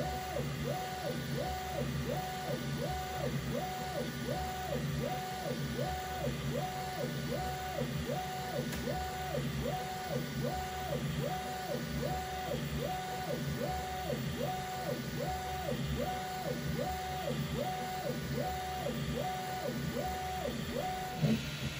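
Bambu Lab P1S 3D printer printing: its stepper motors whine in a pitch that rises and falls with each back-and-forth pass of the print head, about five passes every four seconds, over a steady fan hum.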